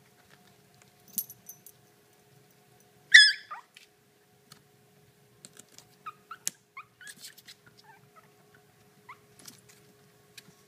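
Puppies play-fighting: one sharp, high yelp about three seconds in, then a string of short squeaky whimpers and yips mixed with light clicks and scratches.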